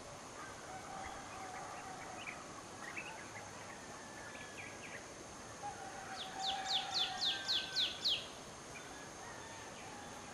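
Birds calling over steady background noise: scattered short chirps, then about six seconds in a quick run of about eight falling whistled notes, four or five a second, lasting about two seconds.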